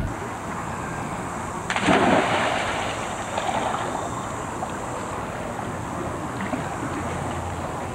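Swimming-pool water sloshing around a swimmer, over a steady hiss, with one louder splash about two seconds in.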